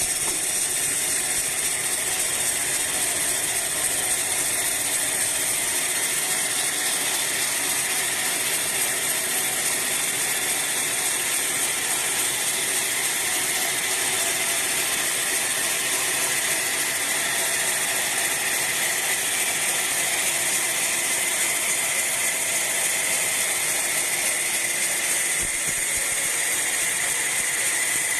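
Sawmill band saw running steadily, its blade cutting through a teak log, with a steady high whine over a dense rasping hiss.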